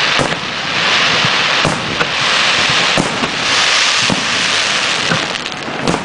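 Aerial firework shells bursting: several sharp bangs, about one a second, over a steady dense hiss that swells and fades.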